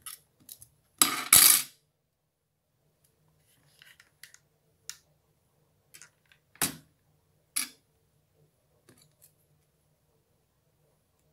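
Small craft tools clicking and knocking against a tabletop as they are handled and set down: a scattered series of short taps, the loudest a double knock about a second in.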